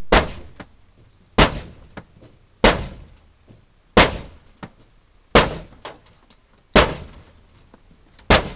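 Axe blows hacking into the metal side of an old caravan: seven heavy strikes, about one every second and a half, each a sharp bang that dies away with a brief rattle.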